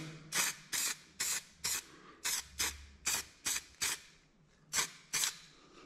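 Primer being sprayed in short hissing bursts, about eleven quick passes at two to three a second, with a short pause about four seconds in.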